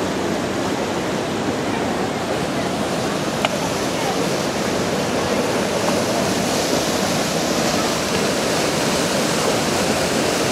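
Mountain river whitewater cascading over boulders at a waterfall: a steady, dense rush of falling water. It grows a little louder and brighter about halfway through.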